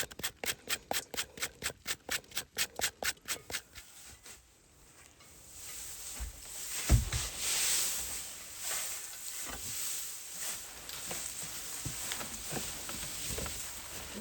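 Fast, even scraping or rubbing strokes, about four or five a second, that stop about four seconds in, followed by a softer rustling hiss with scattered knocks and one sharp thump about seven seconds in.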